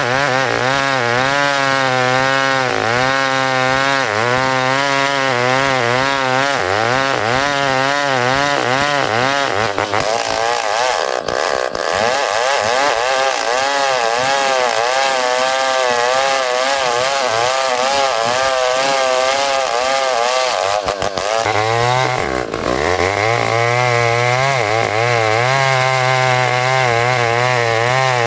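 Two-stroke chainsaw cutting ulin (Bornean ironwood), the engine running near full throttle with its pitch wavering as the chain works through the wood. About three-quarters of the way through the engine note dips briefly and then picks up again.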